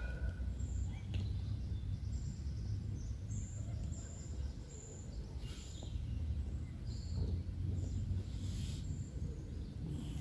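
Outdoor park ambience: a low, uneven rumble under faint, high, short bird chirps that repeat every second or so.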